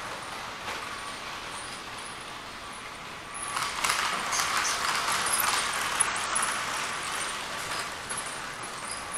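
Model train running round the layout's outer loop, its wheels and motor rattling on the track, growing louder about three and a half seconds in as it passes close and fading again a few seconds later.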